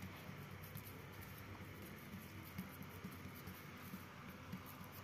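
Faint, soft handling sounds of fingers pressing and lifting a coiled ball of mathri dough on a marble board, over a low steady hum.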